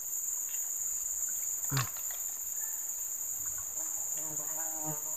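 Steady high-pitched chorus of insects, holding two even tones throughout, with a brief sound falling in pitch about two seconds in.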